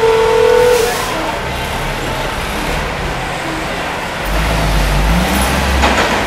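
Diesel engine of a loaded log truck running as it rolls slowly past, with a brief steady squeal at the start. From about four seconds in the engine note grows louder and deeper and climbs slightly in pitch as it pulls harder.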